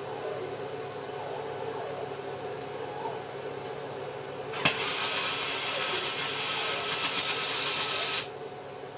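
Welding arc laying a bead: a loud, steady crackling hiss that starts abruptly about four and a half seconds in, runs for about three and a half seconds and stops suddenly, over a low steady workshop hum.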